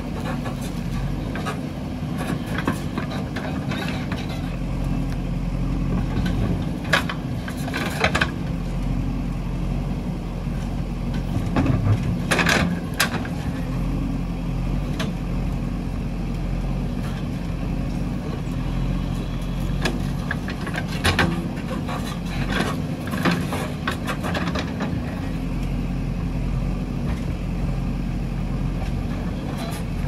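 JCB 3DX backhoe loader's diesel engine running steadily under hydraulic load as the backhoe digs, with several sharp clanks and knocks from the bucket and arm against soil and stones.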